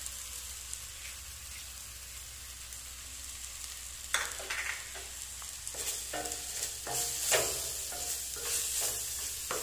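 Onion, tomato and coconut masala frying in a stainless steel kadai, a steady sizzle, with chili powder just added. From about four seconds in, a spatula stirs it in, scraping and knocking against the steel pan in repeated strokes.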